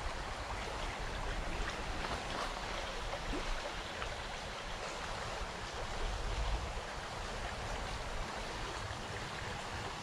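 Shallow, rocky creek riffle, water rushing and burbling steadily over stones.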